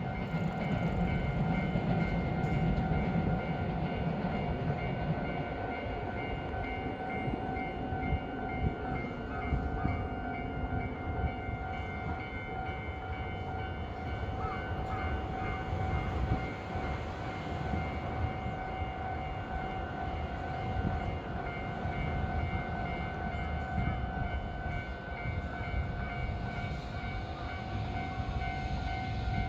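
EH500 electric locomotive and its container wagons passing, a steady rail rumble heaviest in the first few seconds. Over it a level-crossing warning bell rings on with an even, repeating tone.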